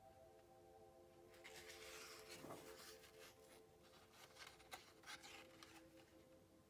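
A glossy page of a children's annual being turned by hand: a soft rustle of paper for about a second and a half, then a few light crinkles and taps as the page is laid flat. Quiet, calm background music of held notes sounds underneath.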